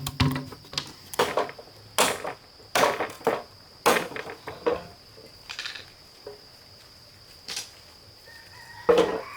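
A series of sharp, irregular knocks and clatters, roughly one or two a second with a pause in the middle, over the steady high drone of crickets.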